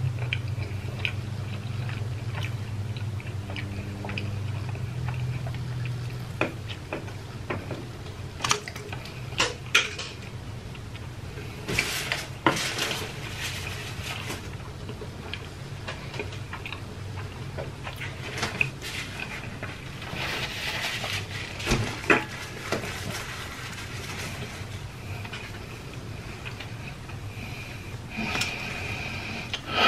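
Someone eating takeout food by hand and handling plastic takeout containers, with scattered clicks and clatters of the containers and utensils.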